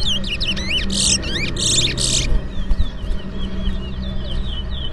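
Towa-towa (large-billed seed finch) song: rapid high whistled chirps and slurred notes throughout, with two loud, dense bursts about one and two seconds in. These are the competing birds' songs that the race counts.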